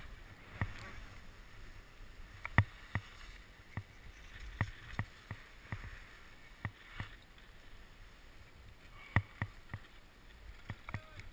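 Skis scraping and sliding slowly over firm snow, with about a dozen irregular sharp clacks and knocks of skis and poles.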